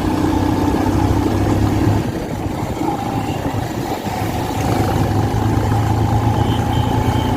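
Motorcycle engine running steadily, a low hum that eases off for a couple of seconds midway.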